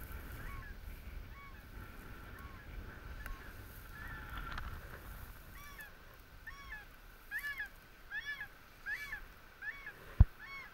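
Goose honks, each rising and falling in pitch, sparse at first, then a quick run of them about twice a second in the second half. A single sharp thump, the loudest sound, comes near the end.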